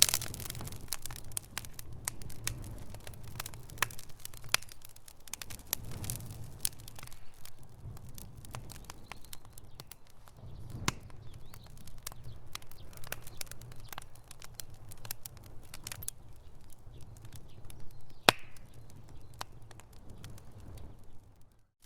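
Campfire burning, with irregular crackles and sharp pops from the burning wood over a low rumble of the flames. One pop about 18 seconds in is louder than the rest, and the sound drops out for a moment near the end.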